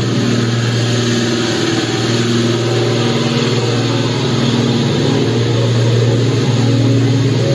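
An engine running steadily: a low, even hum that holds its pitch.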